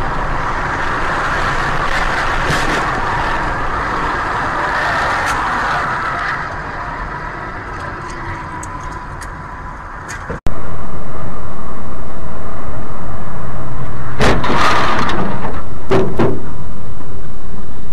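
Car crash dashcam audio: steady road and engine noise with a few sharp bangs. About ten seconds in it cuts to a much louder, distorted rush of noise, with heavy impacts about 14 and 16 seconds in as the vehicle crashes.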